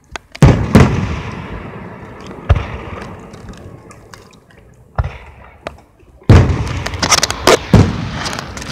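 Aerial fireworks exploding. Two loud bangs about half a second in are followed by a long fading crackle, with single bangs near 2.5 and 5 seconds. A dense run of bangs and crackling starts a little after 6 seconds.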